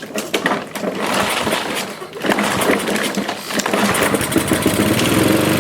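Mountfield SV150 lawnmower engine pull-started on starting spray. It is cranked over, catches about two seconds in and runs fast and rough, running only on the quick-start fluid because of a fuel starvation problem, which the owner puts down to a dirty carburettor.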